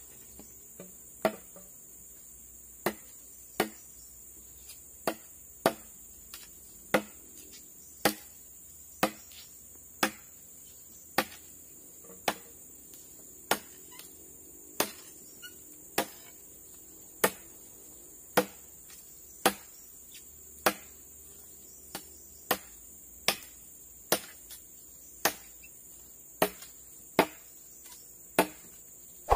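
Machete chopping into a wooden pole: a steady run of sharp, single chops, about one a second.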